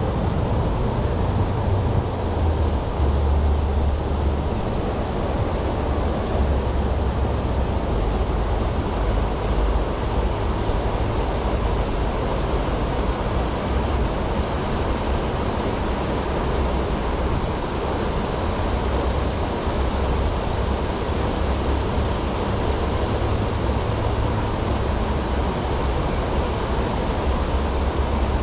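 River water pouring over a low concrete weir: a steady rushing, with wind gusting on the microphone as an uneven low rumble.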